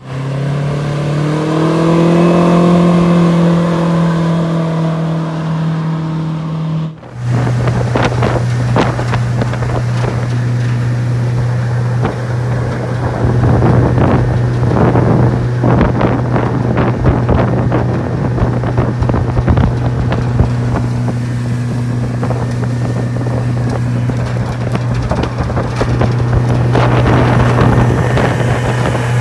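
Yamaha 150 four-stroke jet outboard (105 hp at the jet) running at speed, pushing an aluminum jet boat. For the first several seconds it is a steady engine note with a slight rise in pitch; after a cut about seven seconds in, the engine is heard from on board as a steady drone with wind gusting on the microphone.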